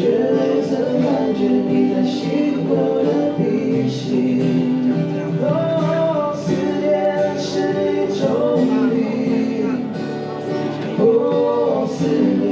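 Music with a man singing.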